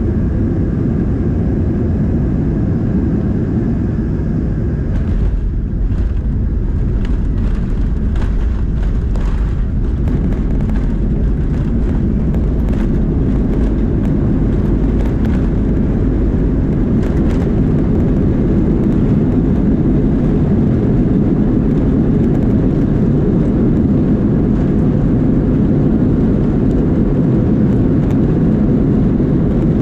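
Boeing 737-200's Pratt & Whitney JT8D turbofans in reverse thrust during the landing roll, a loud steady rumble heard inside the cabin. A run of knocks and rattles comes between about five and ten seconds in, and the rumble grows a little louder about halfway through.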